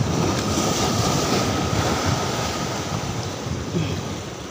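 Sea surf washing and breaking over shoreline rocks, with wind buffeting the microphone; the rush is strongest in the first couple of seconds and eases off. A faint thin whine runs under it early on.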